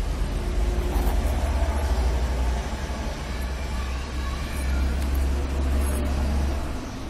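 Low rumble of road traffic, with vehicles passing.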